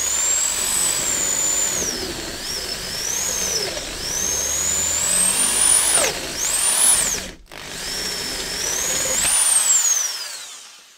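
Hand-held electric drill boring out the remains of a seized spark plug in an aluminium Mazda MX-5 cylinder head, with the bit running hot. The motor's whine rises and sags as the bit bites, cuts out for a moment about seven seconds in, starts again, then winds down near the end as the drill is lifted out.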